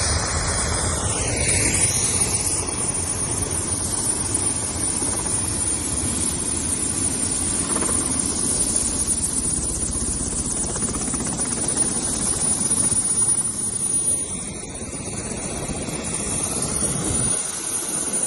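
Helicopter running close by: a loud, steady rush of rotor and engine noise, dipping slightly about fourteen seconds in.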